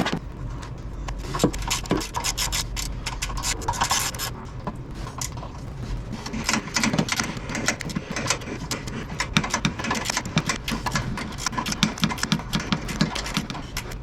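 Metal hand tools at work on a pickup's front suspension: dense, irregular clicking and scraping of metal on metal.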